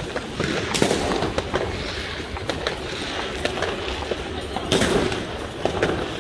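New Year's Eve fireworks and firecrackers going off all around: irregular sharp bangs and crackles over a steady background rumble, with louder bangs about a second in and again later on.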